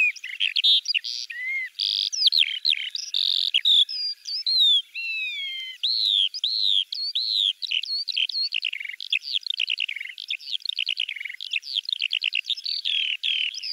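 Birds chirping and singing: a nearly unbroken run of high chirps, sweeping whistles and rapid trills.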